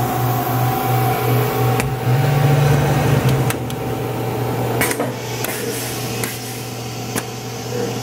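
Steady electrical hum of a powered-up Fadal 4020HT vertical machining center and its electrical cabinet, with a few light clicks and knocks scattered through it.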